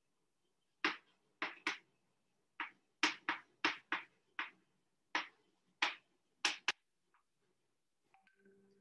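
Chalk writing on a chalkboard: about a dozen short, sharp scratches and taps of the chalk in quick bursts, stopping a couple of seconds before the end.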